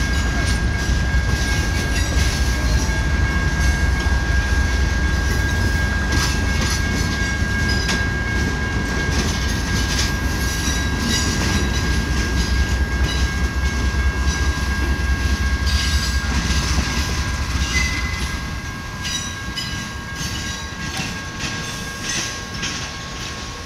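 Freight cars of a slow CN train rolling past, wheels clacking over the rail joints and diamond crossing, with a thin steady wheel squeal. The rumble fades near the end as the last cars move off.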